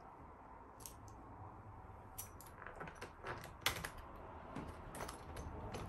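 An Allen key tightening a screw into a chair's seat: irregular small metallic clicks and taps that come thicker after about two seconds, over a steady low hum.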